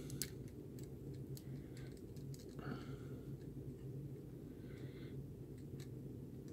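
Small precision screwdriver turning the screw of a PCB screw terminal block to clamp a power wire: a scatter of light clicks, mostly in the first two seconds and once more near the end, with two soft scrapes in between.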